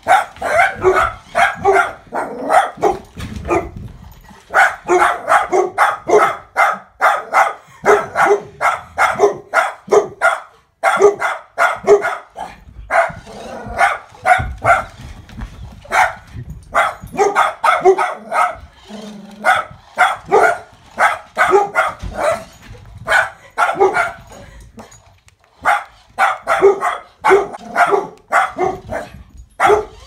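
Dog barking rapidly and repeatedly at a remote-control toy mouse, in long runs of several barks a second with a few short breaks.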